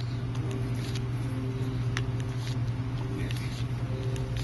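A steady low hum with a few faint, sharp clicks and taps from small handling.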